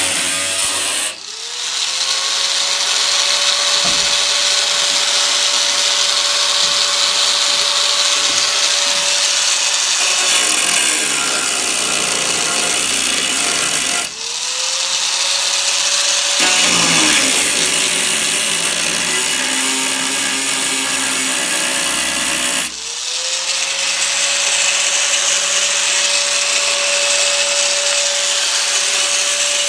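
Handheld power grinder working car-body sheet metal, switched on three times; each time it spins up to a steady whine over a harsh grinding hiss, and the pitch sags for a while in the middle as the wheel bears on the metal.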